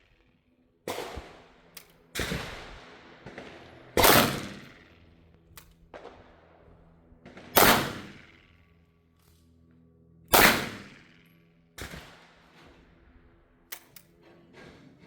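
Gunshots from a .410 revolver shotgun: three loud shots about three and a half seconds apart, each with a ringing echo. Quieter shots sound between them.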